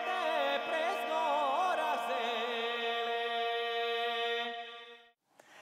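Background music: a wavering melody with wide vibrato over a steady held drone, fading out about five seconds in.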